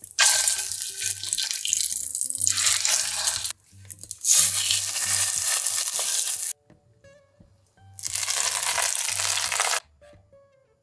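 A slab of pork searing in hot oil in an enamelled cast-iron pot, sizzling loudly in three stretches of a few seconds each that cut off abruptly.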